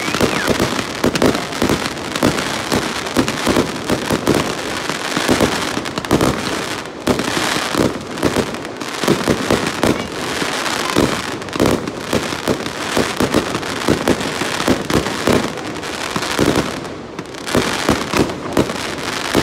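Fireworks going off close by in rapid succession: a continuous run of loud bangs and crackles, several a second.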